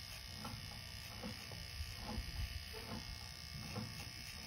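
Cordless electric pet clipper running with a steady high-pitched whine as its blade trims a small dog's fur.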